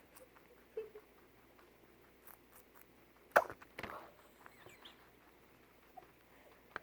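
Guinea pig coughing while eating vegetables: a single sharp cough about three seconds in, followed right away by a shorter, rougher burst, amid faint small clicks. The cough comes from eating too fast, which pushes food toward the airway; the owner says it does not mean something is terribly wrong.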